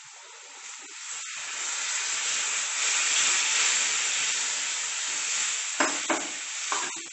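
Food sizzling in a hot pan of cooking curry, the hiss swelling about a second in and holding steady before easing off, with a few short spoon knocks near the end.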